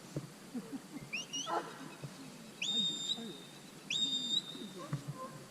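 Shepherd's whistle commands to a working sheepdog: a short rising chirp, then two longer whistles that each sweep up and hold a steady high note.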